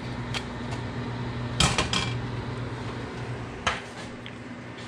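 China plates clinking and clattering as they are handled, a few sharp knocks with the loudest about a second and a half in, over a steady low hum.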